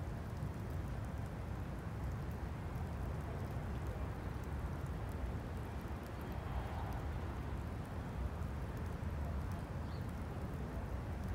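Steady low outdoor rumble of wind and street noise, with faint scattered ticks.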